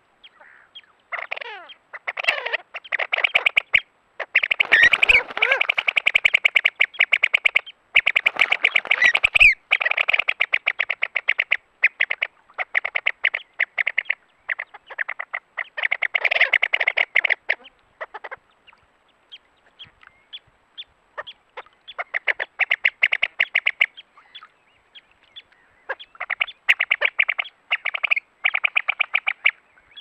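Breeding pied avocets calling: loud, rapid runs of short, high repeated notes in several long bouts with brief pauses, the argumentative calling of avocets with young.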